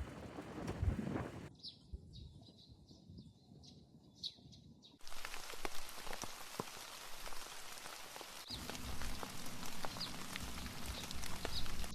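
Rain falling, an even hiss with scattered drops ticking, and a small bird chirping now and then. The sound changes abruptly between takes: from about two to five seconds in the rain drops away and mostly the bird chirps are left.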